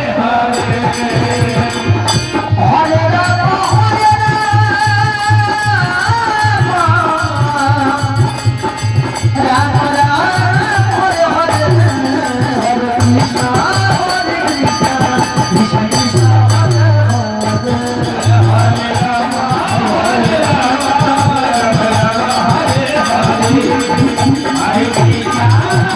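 Hindu devotional kirtan music: a sung melody over a steady drum beat and rattling hand percussion.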